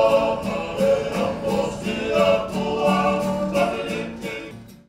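A choir of men singing together in harmony, with strummed guitar and ukulele keeping an even beat; it fades out near the end.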